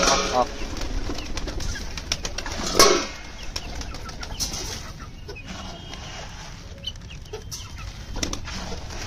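Flock of domestic pigeons flapping and scuffling as they crowd in on scattered grain, with a short loud flurry of wings about three seconds in. After it comes quieter rustling and light pecking on the ground.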